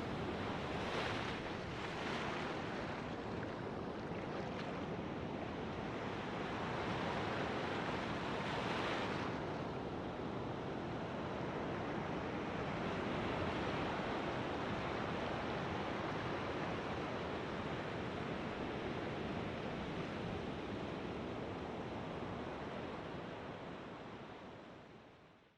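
Ocean surf washing onto a beach, a steady rush with a few swells as waves come in, fading out near the end.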